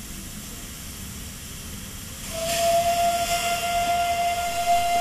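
Steam hissing from a 1922 Henschel narrow-gauge steam locomotive standing at the platform, then a little over two seconds in its steam whistle starts blowing one long steady note over the hiss.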